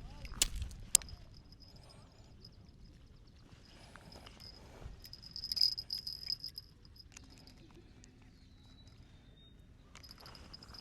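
Night insects trilling in a steady high-pitched drone that fades in and out, loudest about halfway through, with a couple of sharp clicks about a second in.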